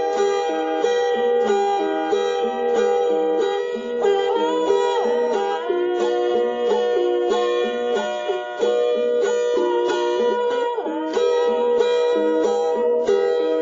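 Music played on a plucked string instrument, a melody of short notes stepping up and down over held tones.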